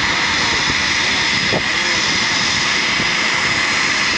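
Eurofighter Typhoon's twin jet engines running as it rolls along the runway: a loud, steady jet whine with a strong high tone over a broad rush.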